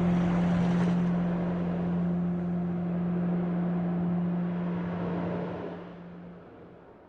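Ambient music fading out: a sustained low drone note held over a soft noisy wash, dying away over the last couple of seconds.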